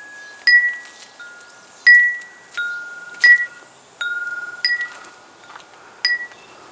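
Homemade aluminium-tube wind chimes swaying in a light breeze, the wooden clapper striking the tubes about once every 0.7 seconds. Each strike rings on with a clear tone, alternating between a higher and a lower pitch.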